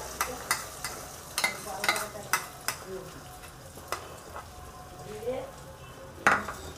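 Beaten eggs sizzling and spitting in hot oil in a kadai, with frequent sharp crackles and pops, thickest in the first few seconds, and one louder crack near the end.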